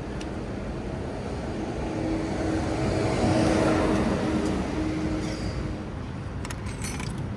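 A car passing close by, its engine and tyres rising to a peak about halfway through and fading away. Near the end come a few sharp metallic clicks as a coin goes into a vending machine's coin slot.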